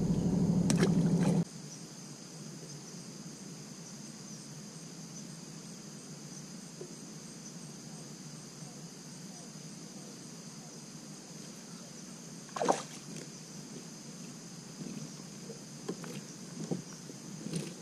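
Quiet summer ambience with a steady high-pitched insect drone; a low hum cuts off suddenly about a second and a half in. A single sharp knock comes about two-thirds of the way through, with a few faint clicks near the end.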